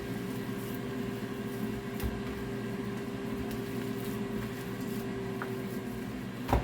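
Hands squishing and mashing a wet chickpea, panko and egg burger mixture in a bowl, over a steady appliance hum whose tone stops near the end. A single knock just before the end is the loudest sound.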